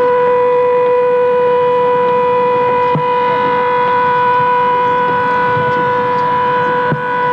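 A single steady tone held at one unchanging pitch, buzzy with many overtones, dipping slightly about three seconds and seven seconds in.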